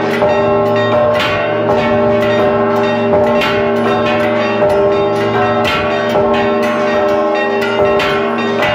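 Church tower bells ringing a rapid repique, the clappers pulled by rope against the bells. The strikes come several a second and overlap, and the ringing of the bells carries on between them. The closest bell is loud.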